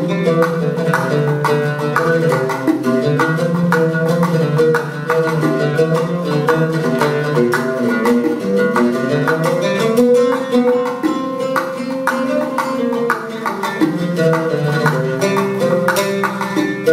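Solo oud playing a rhythmic Arabic improvisation (taqasim mawzuna), a continuous stream of quick plucked notes in a steady pulse.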